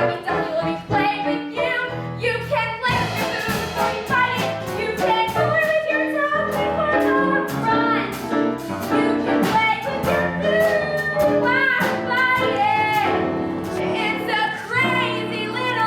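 Musical-theatre song: voices singing over an instrumental backing with percussion.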